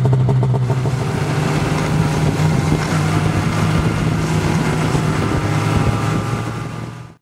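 Snowmobile engine running steadily, its pitch stepping up slightly about a second and a half in.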